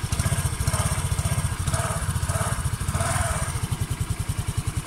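Hero Maestro Edge scooter's 110 cc single-cylinder engine idling, heard at the exhaust outlet as a steady, even run of exhaust pulses.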